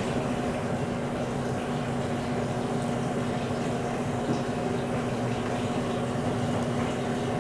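Steady low mechanical hum of running equipment, holding one unchanging pitch throughout.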